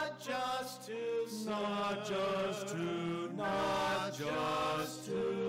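A men's vocal ensemble singing a slow hymn in harmony, holding long notes with vibrato, with piano accompaniment.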